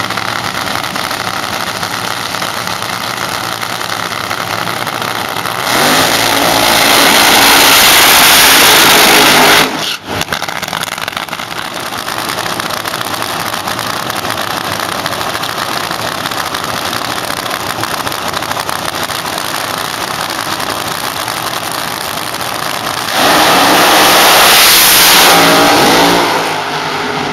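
Supercharged nitro-burning funny car engines idling with a loud, lumpy rumble, broken twice by full-throttle blasts: one of about four seconds starting some six seconds in, and one of about three seconds starting near the end as the cars launch down the strip.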